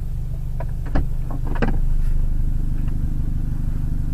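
Vehicle engine idling with a steady low hum, with a few light knocks or clicks between about half a second and two seconds in.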